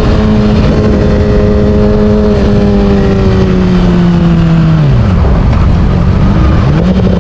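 Yamaha R6's inline-four engine running at high revs under way, heard through heavy wind noise on the camera microphone. The revs hold and ease slightly, fall sharply about five seconds in, then climb again near the end.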